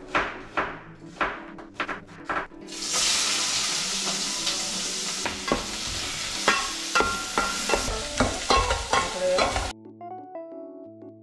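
Pieces of dried pollack frying in a pot, stirred with a spatula that clicks and scrapes against the metal over a steady sizzle. The sizzle starts a few seconds in, after a handful of sharp knocks, and cuts off suddenly near the end. Soft background piano music runs underneath.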